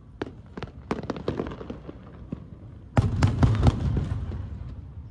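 Aerial firework shells bursting in a string of sharp crackling pops. About three seconds in comes a heavier boom with a low rumble as more shells burst at once, then it fades.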